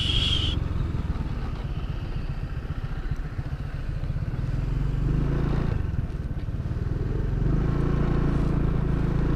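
Scooter engine running at low road speed on a rough path, heard from the rider's own bike, with a steady low pulse of firing and some road and wind noise; it picks up a little about five seconds in. A short high-pitched squeal sounds right at the start.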